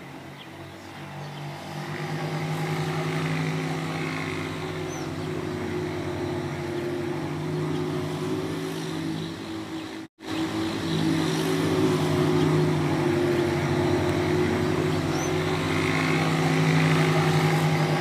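A vehicle engine running steadily, a low hum that cuts out briefly about ten seconds in. A short high bird chirp sounds twice, about five and fifteen seconds in.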